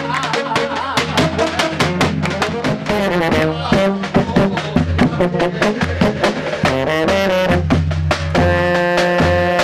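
Live brass band playing: horns over a pounding bass drum and snare drum, with hand-clapping along to the beat. About eight seconds in, the drum strokes thin out and the horns hold longer notes.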